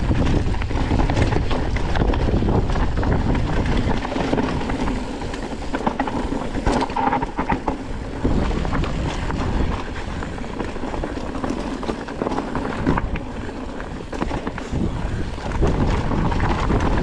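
Wind buffeting the microphone and the clatter of a mountain bike riding a rough trail, with many small knocks and rattles.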